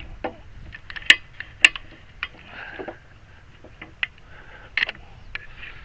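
Irregular sharp clicks and knocks from working on a homemade bee-box lifter by hand, the loudest two about a second and a half second later.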